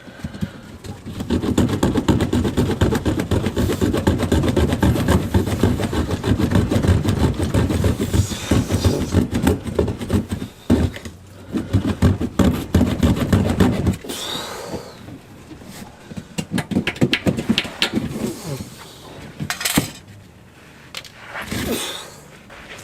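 Sawzall (reciprocating saw) running in fast strokes, cutting a section out of a car's bumper. It stops about 14 seconds in, followed by scattered scrapes and knocks.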